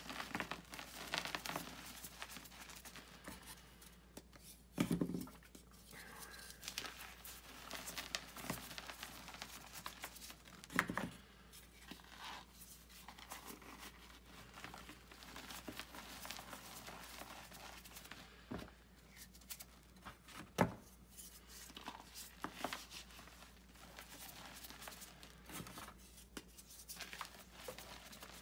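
Blocks and lumps of gym chalk being squeezed and crumbled by hand in a bowl of loose chalk powder: a continuous soft crunching and crackling, with three sharper, louder crunches standing out.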